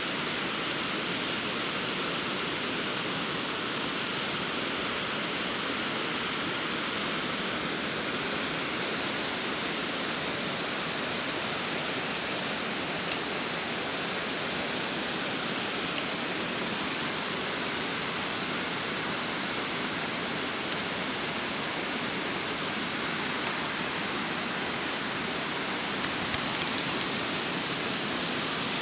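Water pouring over a small weir, a steady rushing noise of the falling water, with a few brief faint clicks over it.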